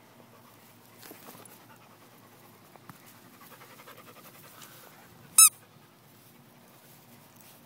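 Labradoodle panting close by, with one short, loud, high-pitched squeak about five seconds in.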